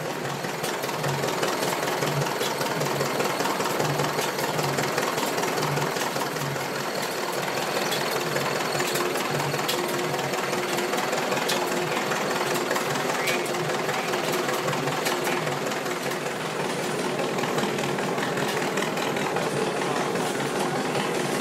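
An old stationary engine running slowly, with a steady, regular knocking beat a little faster than once a second.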